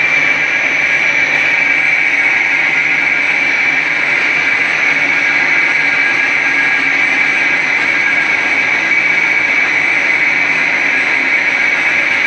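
Flat scourer-making machine running steadily: a loud, unbroken mechanical din with a constant high whine.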